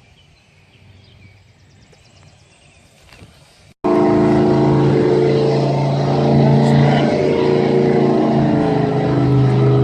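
A boat's outboard motor running steadily at speed, cutting in suddenly about four seconds in after a few seconds of quiet.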